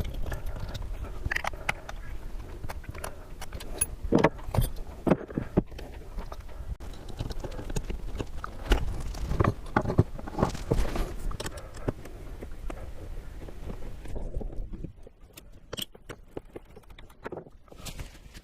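Irregular clicks, knocks and rattles of hand tools and parts as a 50 amp shore power connector and its cable are taken apart, over a low rumble that stops about fifteen seconds in.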